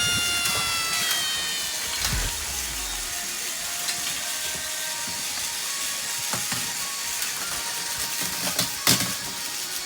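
Battery-powered Plarail toy trains running, a steady gear-driven whir with scattered small clicks and a sharper click about nine seconds in. At the very start a descending tone is still fading out from an impact just before.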